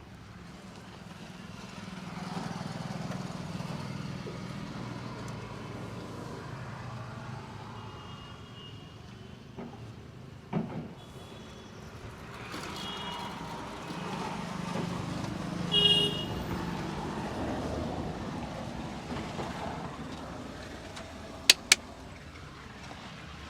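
Road traffic passing, its noise swelling and fading as vehicles go by, with a few brief horn toots. Two sharp snaps come close together near the end.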